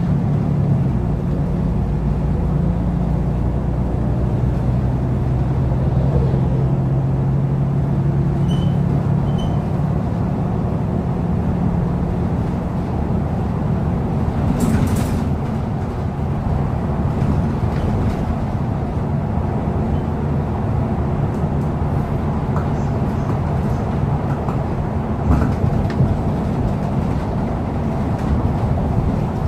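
Mercedes-Benz Citaro G articulated bus running at about 65 km/h: a steady engine drone over road and rolling noise. After about twelve seconds the engine tone eases and mostly rumble is left, with a brief hiss about halfway through.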